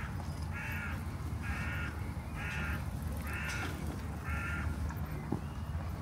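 A bird calling: six short calls about a second apart, the last near the end of the fifth second, over a steady low rumble.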